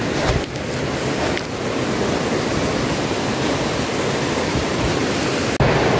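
Steady, even rushing of a fast river running high in flood.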